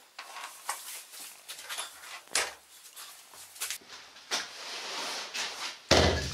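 A series of light clicks and knocks from wood and tools being handled, ending with a loud, heavy thud as a green oak log is set down against a wooden chopping block.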